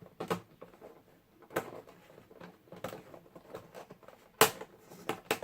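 Irregular clicks and knocks of hard plastic, with rustling between them, as Beyblade stadium parts are handled and fitted together. The loudest knock comes a little past four seconds in.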